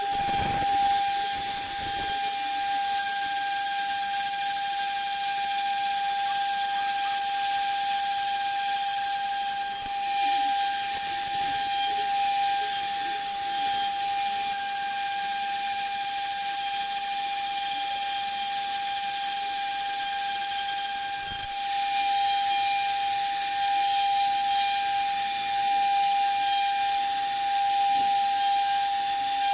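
High-speed router spindle of a 4-axis CNC foam-cutting machine running steadily, a constant high whistle-like whine over a hiss.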